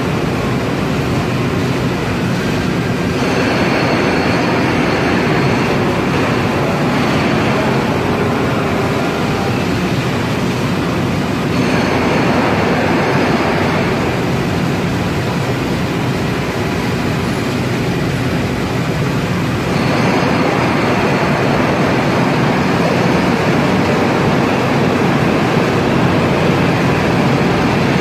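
Mazak E-1550V/10 five-axis machining center running: a loud, steady mechanical hum and rush with a faint high whine at times. The sound changes in character about 3, 12 and 20 seconds in as the rotary table and tilting spindle head move between positions.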